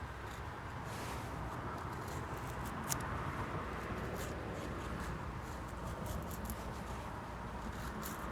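Wood campfire burning: a steady low rush with scattered small crackles and pops, and one sharper pop about three seconds in.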